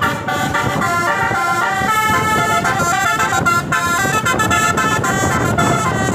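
Tour bus telolet horn playing a quick melody, its notes stepping from one pitch to the next without a break, over the low rumble of the vehicle.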